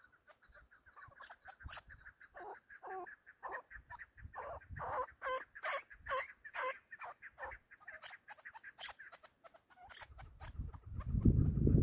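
Chukar partridge calling: a run of short repeated chuk notes, about three a second, growing louder toward the middle and then fading. A loud low rumble comes in near the end.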